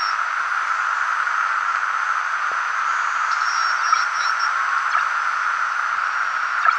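Steady static hiss from a homebuilt Polyakov direct-conversion receiver on the 40 m amateur band, with no station audible. The hiss is strongest in a narrow middle band of pitch, with a few faint clicks and one sharper click near the end.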